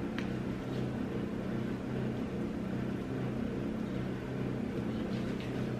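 A steady low hum, like a motor or household appliance running, with a few faint soft clicks over it.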